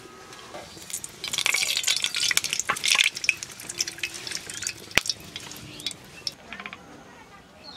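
Hot mustard oil with nigella seeds sizzling and crackling in an aluminium karahi, stirred and then poured into a steel bowl, with one sharp metal clink about five seconds in.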